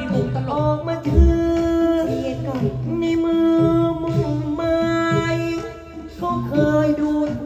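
A Thai likay song: a voice singing long held notes over instrumental accompaniment, with a short drop in loudness about six seconds in.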